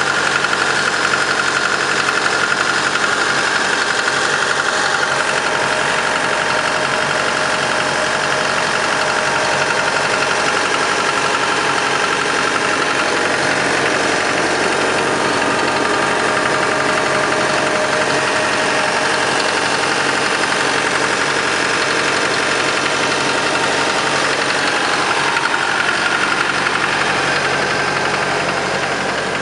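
2012 Cat M315D wheeled excavator's diesel engine idling steadily, heard close up at the open engine compartment; it gets a little quieter near the end.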